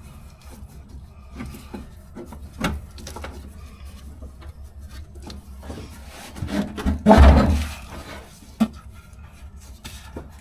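Fuel filler neck being taken off and knocked to shake loose debris caught in it: scattered taps and scrapes, with one louder clattering knock about seven seconds in.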